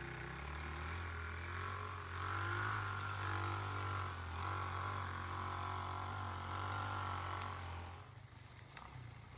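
KXD 125 cc ATV's single-cylinder four-stroke engine pulling under load as the quad climbs a steep dirt slope, its note holding a steady pitch. The engine sound swells in the middle and drops away about eight seconds in.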